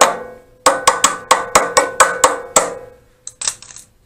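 Quick metal-on-metal tapping, about five strikes a second with a ringing tone. A run of about ten taps follows a short pause, and a few lighter clicks come near the end.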